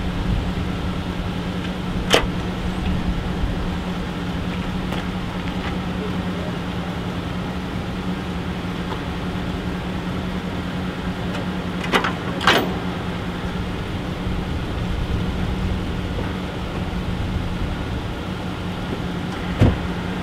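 Pickup truck engine idling steadily, a constant low hum, with a few sharp clicks: one about two seconds in, two close together about twelve seconds in and one near the end.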